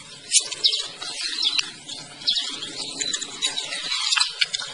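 Wet mud and water squelching and crackling as a metal hook probes a burrow in tidal mud and a hand digs in after it. The sound is a dense run of irregular clicks and crackles over a lower wet churning, which breaks off briefly about four seconds in.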